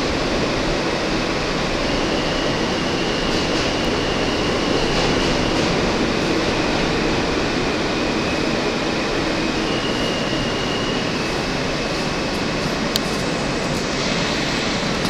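Interior ride noise of an R160 subway car: a steady rumble and rush of the car rolling on the rails through a station, with a faint high whine that steps up and down in pitch. A single sharp click near the end.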